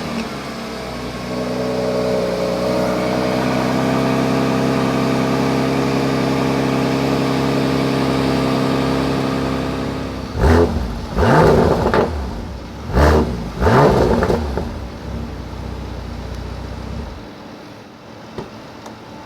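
Bentley Continental GT's 6.0-litre W12 engine running at a steady idle, blipped up in four short revs about halfway through, then falling back to idle. Near the end the engine sound stops.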